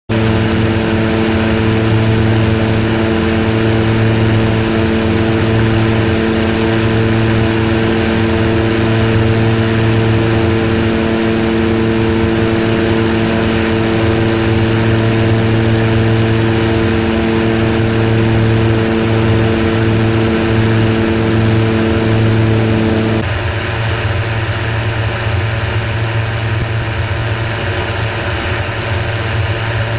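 Searey light amphibian's engine and propeller droning steadily in flight, with wind rush. About two-thirds of the way through, the steady engine tones drop away, leaving a rougher rush of wind and engine.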